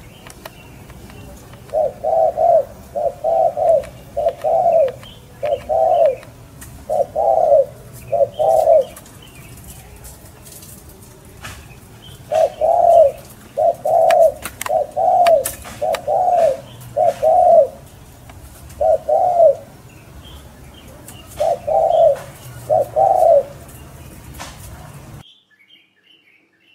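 A dove cooing in a long series of short, repeated notes, roughly one a second, with a pause of a few seconds in the middle. Small birds chirp faintly behind it. The sound cuts off abruptly near the end.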